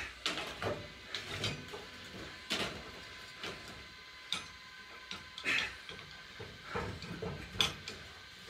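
Metal tongs knocking, clinking and scraping in a charcoal grill's fire basket as the coals are moved, in irregular short knocks and scrapes.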